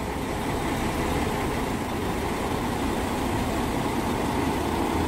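Hyundai Xcient tractor unit's diesel engine running steadily as the truck slowly pulls its trailer out of a loading bay.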